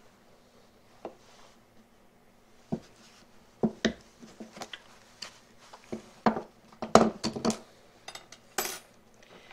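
Irregular light clicks and metallic clinks of short pieces of 1/8-inch steel welding rod and small tools being handled on a workbench, growing busier and louder a little past halfway through.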